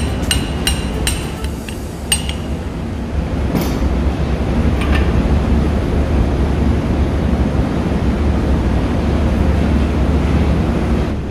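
Steady low machinery drone with light metallic clinks of valve parts being handled on a diesel cylinder head: a quick run of clinks in the first two seconds, and a couple more a few seconds in.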